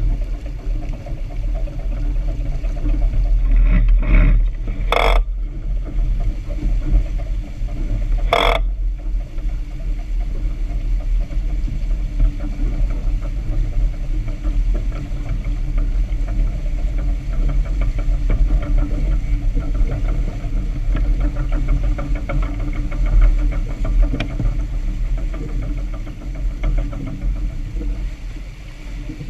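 Wind buffeting an action camera's microphone on a moving sailboat, over water rushing and splashing along the hull. A few brief sharp sounds stand out around five and eight seconds in.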